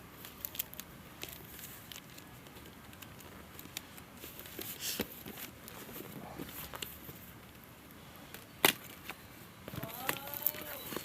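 A parcel being opened by hand: scattered crackling of plastic packaging and tearing of tape, with one sharp snap about three-quarters of the way through. A brief voice near the end.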